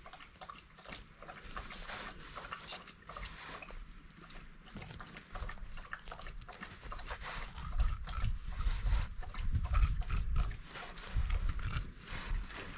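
Small knife slitting open a cutthroat trout's belly on a steel table: soft, wet, irregular scraping and clicking as the blade works along the belly. A low rumble joins in from about five seconds in.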